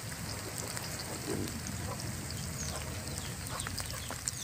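Sliced onions frying in oil in a steel wok, a steady sizzle, with a few short animal chirps in the background, mostly near the end.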